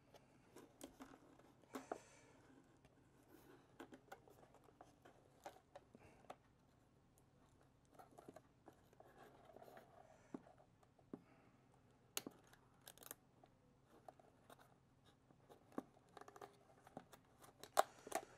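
Faint handling noises of cardboard firework packaging: scattered soft clicks, taps and rustles, with a few sharper clicks about two-thirds of the way through and again near the end.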